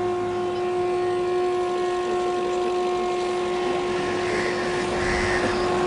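A steady droning tone, held on one pitch with overtones above it, over a faint hiss.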